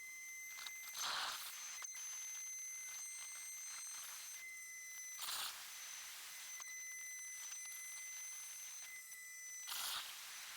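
CNC router spindle running with a steady high-pitched whine while cutting the final profile around a cherry carving. A louder rush of cutting noise comes three times, about every four seconds.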